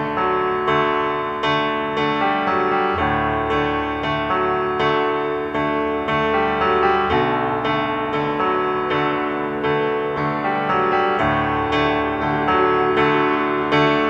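Background music: a keyboard playing a steady, even run of notes.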